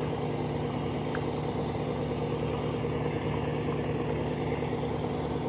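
Small outboard motor idling steadily, an even low hum that does not change.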